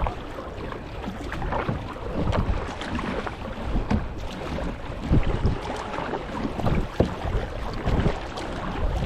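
Water splashing and sloshing around a kayak, with irregular low gusts of wind buffeting the microphone.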